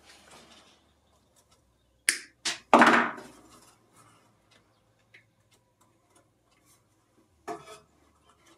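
Clicks and knocks of hands working the wire-feed drive of a flux-core MIG welder while threading the welding wire, with a cluster of louder clattering knocks about two to three seconds in and another near the end.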